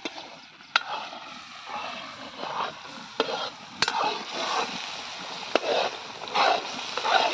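Metal ladle stirring a watery curry masala in a large metal kadai, scraping and sizzling in patches, with several sharp clinks of the ladle against the pan.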